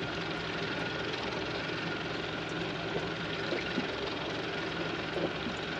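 Boat engine running steadily, an even hum with a constant tone and no change in speed.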